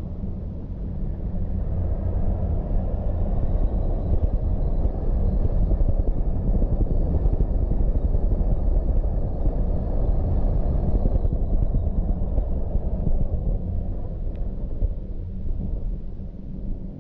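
Car driving on a mountain road: a steady low rumble of engine and tyre noise, growing louder a couple of seconds in and easing off near the end.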